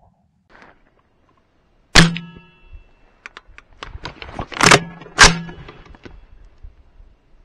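A rifle being handled, picked up through a camera mounted on its scope. There is a sudden loud metallic clunk about two seconds in, lighter clicks and rattles after it, and two more loud clunks close together around the middle. Each clunk leaves a short ringing hum from the scope.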